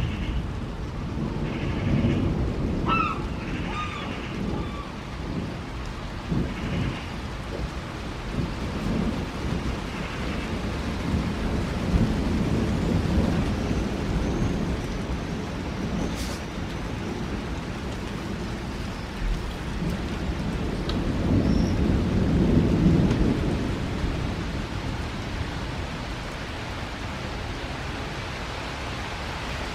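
Distant thunder rumbling in long, rolling swells that grow loudest about midway and again about two-thirds of the way through. A few short, high chirps come near the start.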